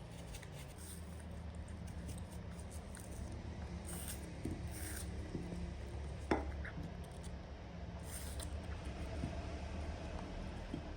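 Small clicks and handling noises over a low steady hum, with one sharper click a little past the middle.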